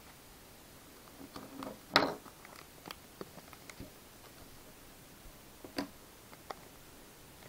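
Foil trading-card pack wrapper being torn and crinkled by hand: scattered short crackles and clicks, the sharpest about two seconds in and another near six seconds.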